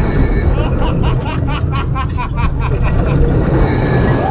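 A launched steel roller coaster's train rumbling along its track, heard from on board. About a second in, a quick run of short, evenly spaced bursts rides over the rumble for a couple of seconds.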